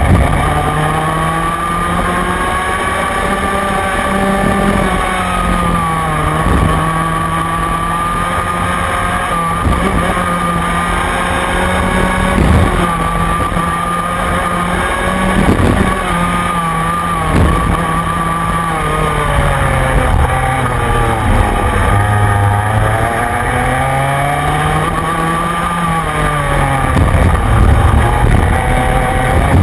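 Onboard sound of a Rotax Mini Max kart's 125cc two-stroke engine at racing speed. Its pitch falls as it slows into each corner and climbs again on the exits, several times over, with a few short knocks along the way.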